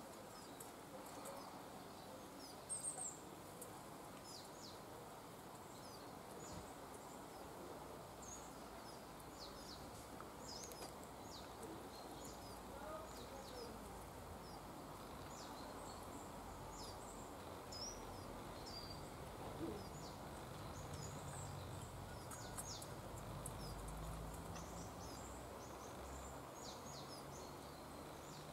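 Quiet outdoor ambience with scattered short, high bird chirps and calls throughout, and a faint low rumble in the second half.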